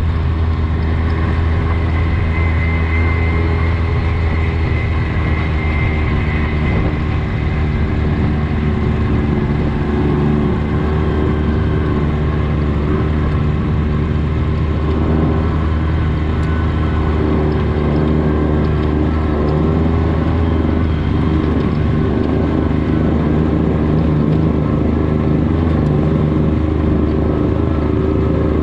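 Off-road side-by-side engine, a Polaris RZR, running steadily under way at a fairly constant speed, its pitch shifting only slightly.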